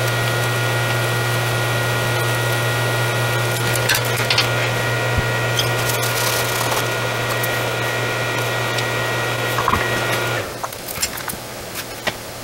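Steady hum and hiss of a small motor running, which cuts off abruptly about ten seconds in. A few light clicks follow.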